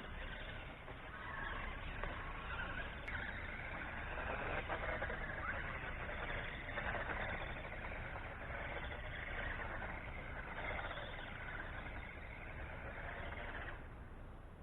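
Small electric motor and drivetrain of a 1:18-scale 4WD RC buggy whining as it drives, the pitch rising and falling as it speeds up and slows, mixed with tyre noise on wet ground.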